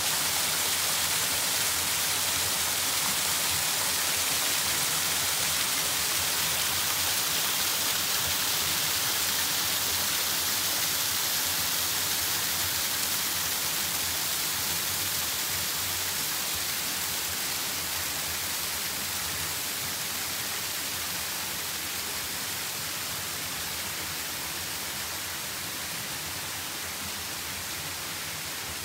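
Small waterfall splashing over shale ledges into a pool, a steady rushing hiss that slowly fades.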